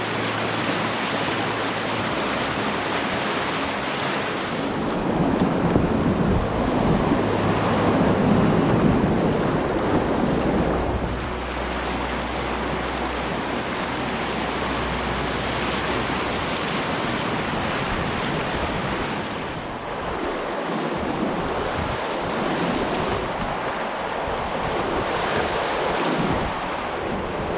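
Rushing river water, with wind buffeting the microphone; the water gets louder about five seconds in and eases off again near eleven seconds.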